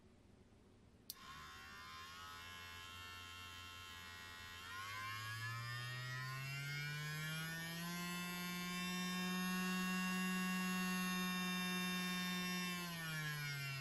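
Small brushed DC motor switched on with a click of the speed controller's knob switch about a second in, then whirring steadily. Its pitch climbs as the PWM speed knob is turned up, holds at the higher speed, and falls again near the end as the knob is turned back down.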